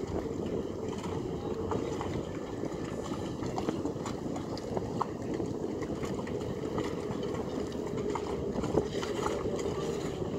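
Harbour ambience: a steady low rumble with a few light knocks and clicks scattered through it, the sharpest one near the end.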